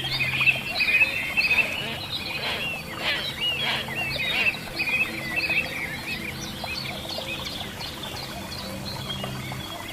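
Many small birds chirping and calling at once, short high chirps overlapping, busiest in the first half.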